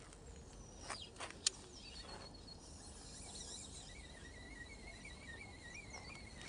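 Four-strand braided fishing line buzzing as it is wound in on a baitcasting reel and Okuma One rod, with a faint, steady, slightly wavering whine from about two seconds in. Before it there is a short falling whine and a single click about a second and a half in, from the reel during the cast. This braid on this rod and reel buzzes a lot, though which of the two causes it is not known.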